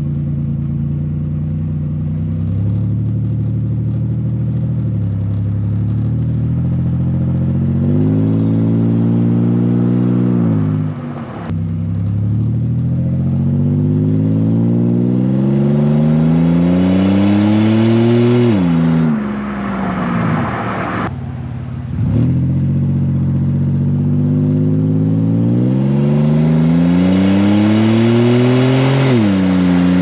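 Exhaust of a 1999–2005 Pontiac Grand Am's 3.4-litre V6 running with a muffler delete (the muffler cut out), heard at the tailpipe as the car accelerates. Engine pitch climbs and then drops sharply at each upshift, three pulls in all, with a short easing-off about two-thirds of the way through.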